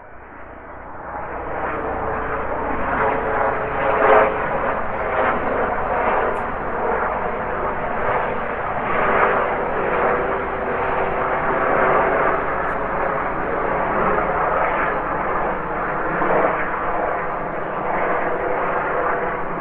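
Airplane flying by, a steady engine drone that swells up over the first couple of seconds and then holds.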